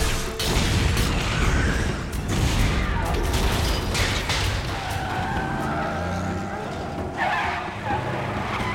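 Action-film chase sound effects: a heavy truck engine running under loud crashing and explosion noise in the first few seconds, then tyres skidding and squealing.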